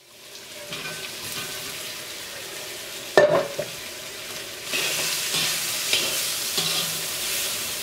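Chicken pieces frying in oil in a cast-iron wok, sizzling as they are stirred and tossed with a metal slotted spatula. There is one sharp knock about three seconds in, and the sizzling gets louder about five seconds in.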